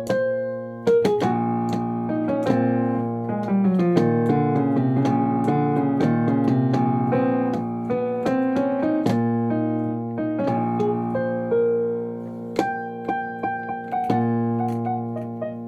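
Solo piano music: a steady stream of struck notes and chords, each ringing out and fading, over held bass notes.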